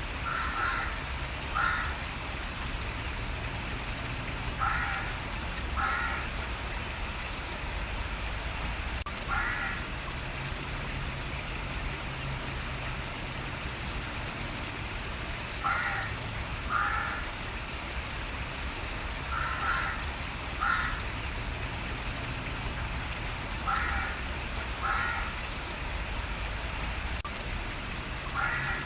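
A crow cawing, mostly two calls about a second apart, repeated every few seconds, over a steady rush of running water.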